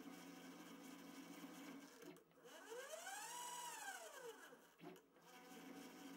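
Faint steady hum of a DIY CNC micro lathe, with a stepper motor's whine starting about two seconds in. The whine rises in pitch and falls back over about three seconds as the axis speeds up and slows to a stop.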